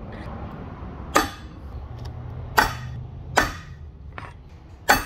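Five sharp metal clinks, unevenly spaced and each ringing briefly, as steel pins are set into the bolt holes of a transmission case standing on an aluminium plate.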